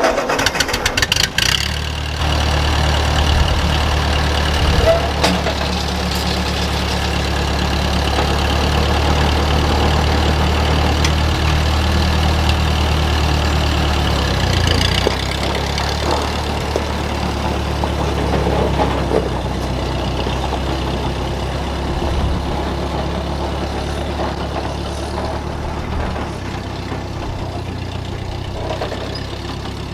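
Ford 8N tractor's four-cylinder flathead engine running steadily at idle, its low note shifting about halfway through.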